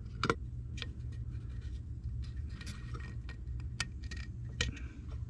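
Light, irregular clicks and taps, about a dozen, as a new oil filter return tube (standpipe) is dropped into and seated in the oil filter housing of a Ford 6.0 diesel, over a steady low hum.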